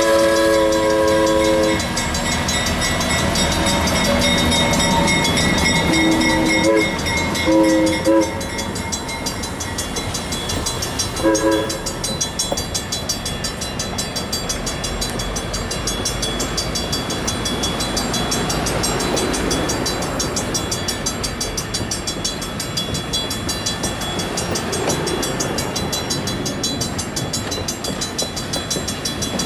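The 80-ton diesel switcher's Hancock 4710 air whistle sounding a chord that ends about two seconds in, followed by three short toots between about six and twelve seconds in. Then the passenger cars roll past with steady wheel rumble and clatter over the rails, over the even ringing of the crossing bell.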